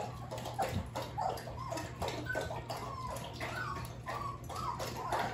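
Young puppies, about 19 days old, squeaking and whimpering in a quick run of short, high, falling cries, several a second.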